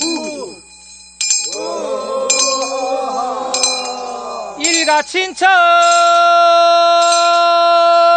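Korean funeral bier song (sangyeo-sori): a handbell rung about once a second while several voices sing a refrain together, their notes sliding down at the phrase ends. About five and a half seconds in, a single lead voice takes over and holds one long note that begins to waver near the end.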